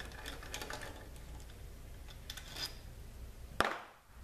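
Hand ratchet clicking in short runs while backing out valve body bolts, with one sharper, louder click about three and a half seconds in.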